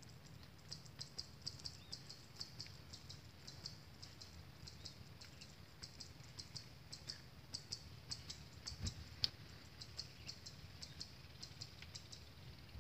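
Faint, irregular high-pitched ticking chirps, a few each second, from small wildlife in a rice field, over a low steady rumble. A single soft thump comes about nine seconds in.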